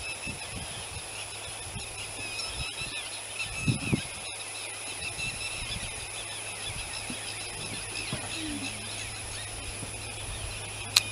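Outdoor ambience: faint bird chirps over a steady high-pitched drone and a low hum, with a couple of low thumps about four seconds in.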